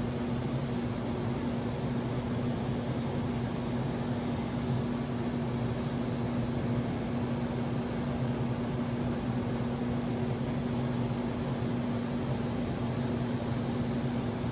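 Steady cabin noise of a Cirrus SF50 Vision Jet in cruise: an even rush of air with a constant low engine hum.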